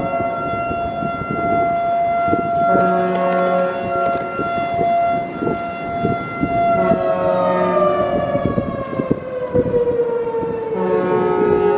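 Mechanical civil-defense-style fire siren wailing at a steady pitch, swelling and fading about every four seconds as it rotates, then winding down with a slow falling pitch from about seven seconds in.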